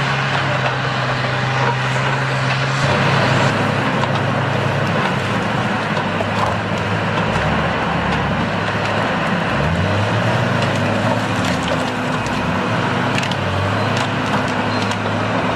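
A machine's engine running steadily under a rough, continuous noise with scattered clicks. The engine note dips and then rises again around the middle, as the load changes.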